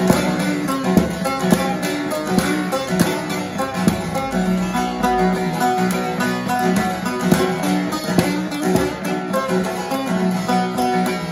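Divan bağlama, a long-necked Turkish saz with a carved mulberry bowl and spruce top, being strummed with a plectrum in quick, even strokes while playing a melody.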